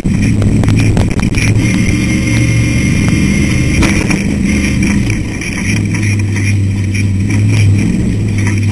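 Ultra4 off-road race car's engine running hard at speed over rough desert ground, heard from inside the car, with a few sharp knocks from the chassis hitting bumps.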